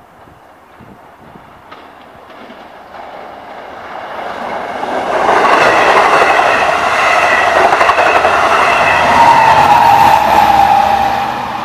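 Double-deck commuter train passing close by. The rail noise builds over the first five seconds, stays loud, and begins to fade near the end, with a steady whine on top from about nine to eleven seconds in.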